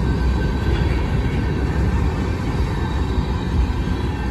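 Freight cars of a manifest train rolling past, steel wheels on rail making a loud steady rumble with a faint high-pitched squeal.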